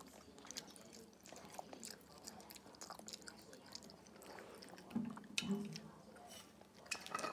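A person chewing a mouthful of bopis and rice close to the microphone, with soft wet mouth sounds and small clicks.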